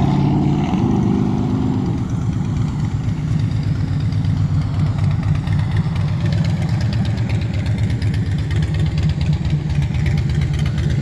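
Small engine of a friction-drive motorized bicycle running steadily under way, its pitch shifting slightly about two seconds in.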